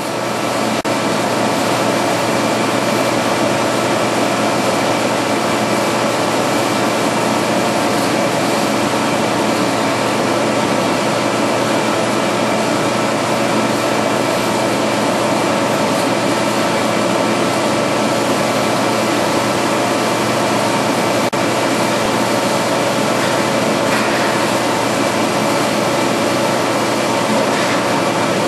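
VC999 QS8 K8 automatic belt vacuum chamber packaging machine and its conveyor running: a loud, steady mechanical hum with a hiss over it.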